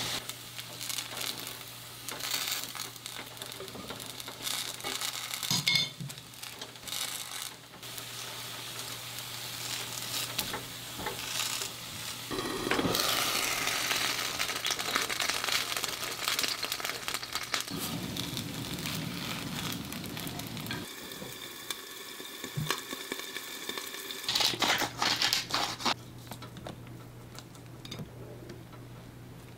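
Kitchen cooking sounds: food sizzling in a frying pan, broken up by handling, stirring and rustling, with a few sharp clicks.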